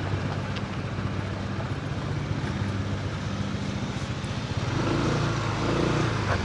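A road vehicle's engine running steadily with road noise, growing a little louder about five seconds in.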